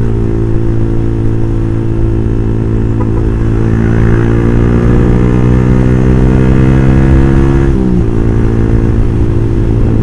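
Motorcycle engine and exhaust running steadily while riding. The pitch climbs slowly from about four seconds in, then drops sharply about eight seconds in.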